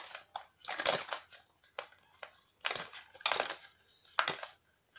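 Cosmetic packaging being handled and set down: a cardboard product box, a plastic lip gloss tube and a sachet giving several short rustles and light knocks.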